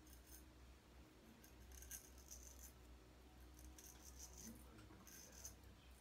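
Faint crisp scraping of a George Butler 6/8 round point straight razor cutting lathered whiskers, in about four short strokes roughly a second and a half apart, over a low steady hum.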